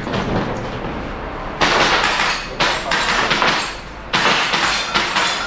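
Airsoft electric rifle (AEG) firing in rapid strings of shots, in three spells starting about one and a half seconds in, with a clatter of impacts.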